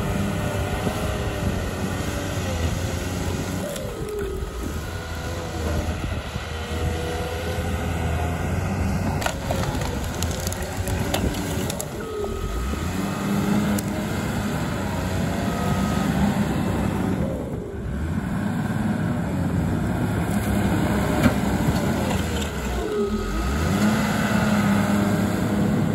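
Small crawler bulldozer's diesel engine working under load as the dozer shoves a pile of stumps, brush and concrete rubble, its pitch rising and falling repeatedly as the load changes, with a few sharp knocks.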